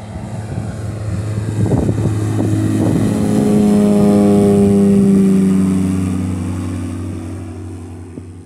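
The Eraole hybrid-electric light aircraft flying low past overhead, its propeller and motor drone growing louder, loudest about four to five seconds in, then falling in pitch and fading as it moves away.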